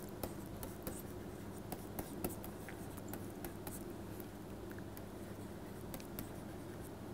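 Stylus tapping and scratching on a tablet surface while handwriting, heard as a scatter of faint irregular clicks over a steady low electrical hum.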